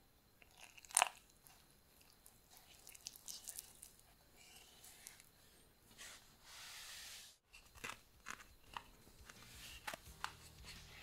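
Silicone spatula stirring powdered sugar and lemon juice into a thick glaze in a glass bowl: quiet sticky, crunchy scraping with scattered clicks against the glass, and a sharp tap about a second in.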